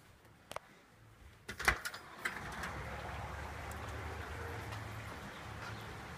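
A click, then a few sharp knocks about a second and a half in as a house's front door is opened. Then the steady hiss of heavy rain comes in from outside, with a low rumble underneath.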